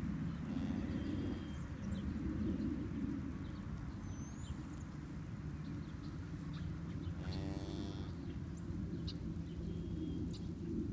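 Small birds chirping now and then over a steady low rumble. A single short pitched animal call about seven seconds in.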